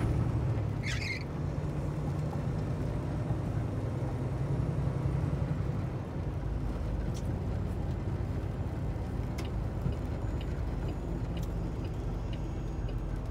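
Diesel truck engine running steadily with road noise, heard from inside the cab while driving. A brief squeak about a second in.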